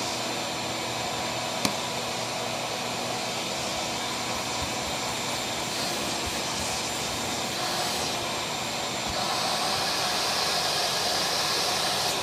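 Vacuum cleaner running steadily as it sucks up rocks, with a single sharp click about one and a half seconds in. From about nine seconds in it grows louder and hissier.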